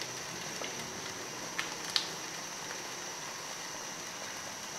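A steady low hiss, with two small clicks about one and a half and two seconds in.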